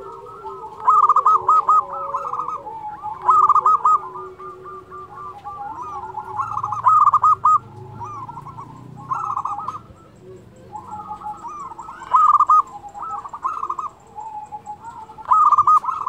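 Zebra dove (perkutut) of the local Indonesian strain cooing: bursts of rapid, rolling notes repeated every two to three seconds, with softer, lower cooing between them.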